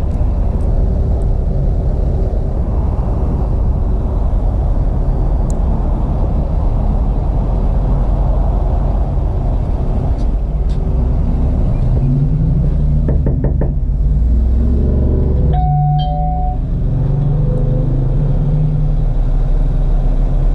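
Tow truck engine idling with a steady low rumble. A few knocks about 13 seconds in and a brief beep-like tone a little after.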